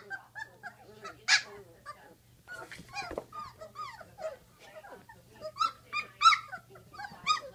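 A litter of 16-day-old Great Dane puppies whining and squealing in many short, high-pitched cries, with a louder run of cries in the last couple of seconds.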